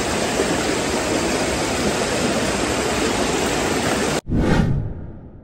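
Steady rushing of river water flowing over rocks. About four seconds in it cuts off abruptly, and a short edited outro sound effect follows, swelling and then fading away over about a second.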